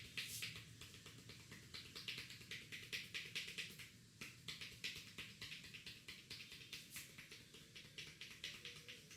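A barber's hands tapping and snapping on the head in a head massage: a quick, irregular run of sharp light strikes, several a second.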